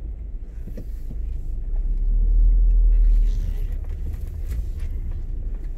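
Low rumble of a car heard from inside its cabin as it moves slowly in traffic, growing louder about two seconds in and easing after about three seconds.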